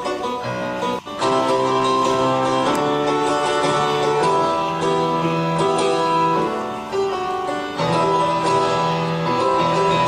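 Background music with plucked strings and held notes. It dips briefly about a second in, then continues louder.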